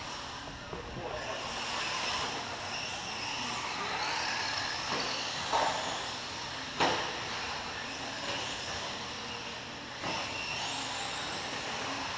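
Electric radio-controlled cars running on an indoor track, their motors whining higher and lower with the throttle. Sharp knocks come a little past halfway, again about a second later, and once more near the end.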